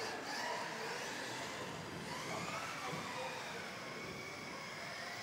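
Several electric RC off-road race cars driving laps on a carpet track. Their motors whine and rise and fall in pitch as they accelerate and brake, echoing in a sports hall.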